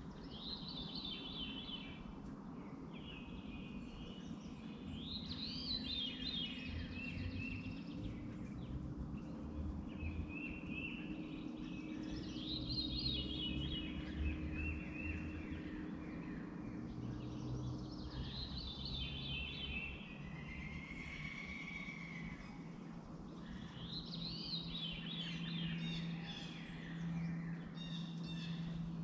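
A songbird singing the same short, rapid chirping phrase over and over, a new phrase every five or six seconds, over a steady low hum.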